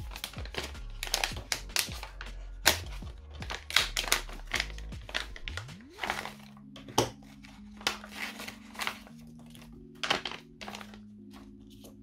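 Plastic retail pouch of an Ethernet cable crinkling and rustling in the hands as it is handled and emptied, a dense run of sharp crackles that thins out near the end. Background music plays underneath.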